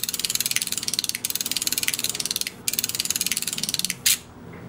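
Electromagnetic flip-segment digits of a flip-digit clock clattering in a rapid run of clicks as the display clears and redraws the time on the minute change. There is a short pause partway through and a louder final burst just after four seconds in.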